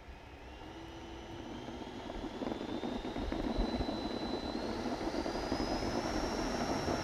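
Twin 80 mm electric ducted fans of a Freewing MiG-29 RC jet spooling up for the takeoff roll. A high whine rises steadily in pitch and grows louder over a rushing noise.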